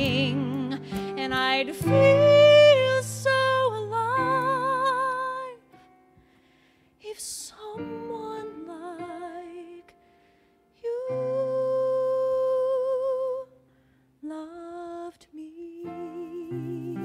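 A woman singing a slow show-tune ballad with wide vibrato over sustained keyboard chords, in phrases broken by short pauses, holding one long note about two-thirds of the way through.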